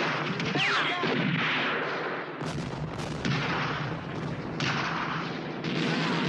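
Battle gunfire sounding without a break, rifle and machine-gun shots crowding together, with several heavier blasts about two and a half, three and nearly six seconds in.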